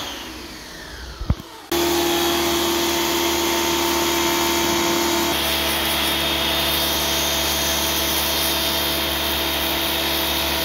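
Pressure washer motor and pump winding down as the trigger is released, then starting up again abruptly about two seconds in and running steadily while the jet sprays the minibike's engine and rear wheel. Its tone shifts slightly about five seconds in.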